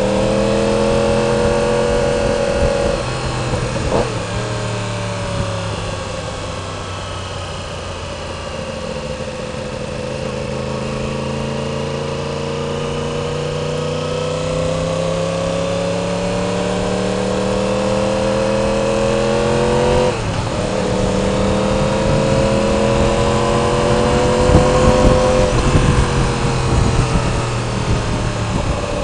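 2016 Yamaha R1's crossplane inline-four, breathing through a cheap aftermarket slip-on exhaust tip, pulling through traffic. The engine note sags as the throttle eases about four seconds in, then climbs slowly, drops with an upshift about twenty seconds in, and climbs again.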